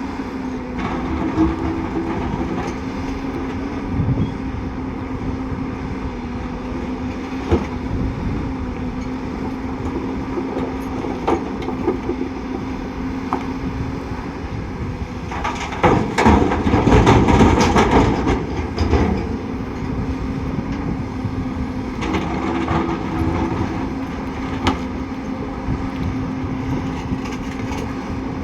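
Heavy diesel earthmoving machinery running at a steady engine note, with scattered metallic clanks and knocks. About halfway through, a loud rushing, rattling noise lasts about three seconds before the steady running returns.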